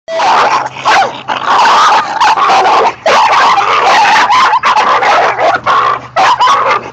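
Two dogs scuffling on leashes, barking and yelping loudly, almost without pause.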